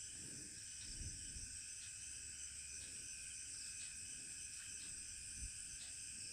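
Faint, steady, high-pitched chirring of crickets in the background, with a couple of soft low thuds about a second in and near the end.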